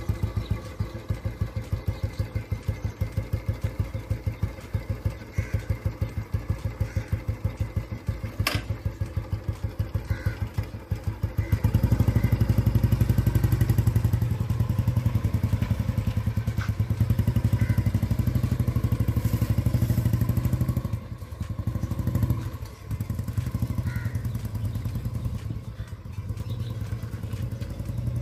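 1958 Royal Enfield G2 Bullet's single-cylinder four-stroke engine idling with an even, pulsing thump, then getting louder and busier about halfway in as the bike pulls away and is ridden. The engine note dips briefly twice shortly after that, as the throttle is eased off.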